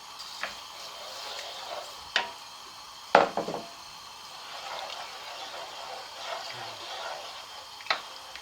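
Pan of tomato and stock liquid bubbling on the hob with rice just added, a steady hiss, and a few sharp knocks of a utensil against the pan, the loudest cluster about three seconds in.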